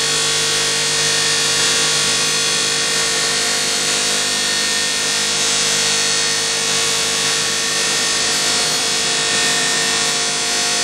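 A power sanding tool grinding the kerb damage out of an aluminium alloy wheel rim: a steady abrasive hiss over a constant motor hum, unchanging throughout.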